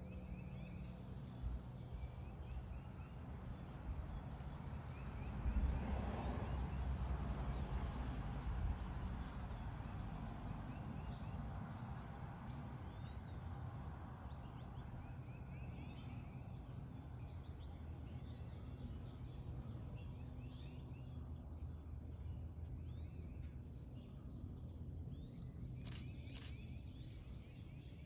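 Outdoor ambience: birds chirping over a steady low rumble. A broad swell of noise rises about six seconds in and fades over the next few seconds.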